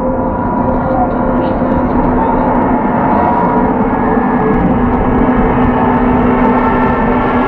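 Turbofan engines of a large jet aircraft running: a steady roar with several held whining tones, slowly growing louder.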